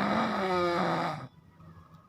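A person snoring heavily: one long, pitched, rasping snore on the breath that stops about a second in, followed by a quiet pause before the next breath.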